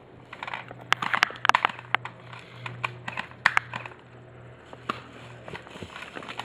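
Airsoft guns firing: irregular sharp snaps, several close together about a second in and single ones later, over a steady low hum.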